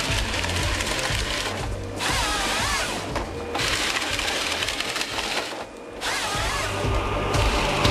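A forestry harvester working with a Lako 63 HD harvesting head: its engine and hydraulics run under dense mechanical cutting and feeding noise. The sound drops out briefly three times, with music present.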